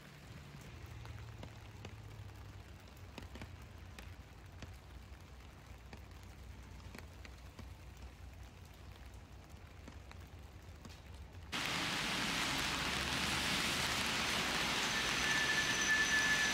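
Quiet background noise with faint scattered ticks and a low hum. About eleven and a half seconds in it jumps suddenly to a loud, steady hiss, and a brief high tone sounds near the end.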